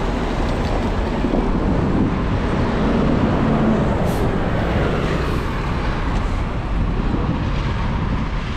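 City street traffic: vehicles running and passing on the road, a steady roar of engines and tyres, with one engine hum swelling about three seconds in.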